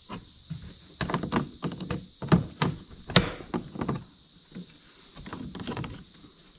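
Plastic front bumper grille of a Mazda 6 being pressed and snapped into its retaining clips: an irregular run of clicks and knocks, the sharpest about three seconds in, thinning out to quieter handling noise in the last couple of seconds.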